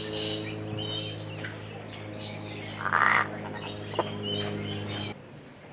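Birds calling and chirping, with one loud harsh call about three seconds in and a short falling call a second later. A steady low hum runs underneath and cuts off about five seconds in.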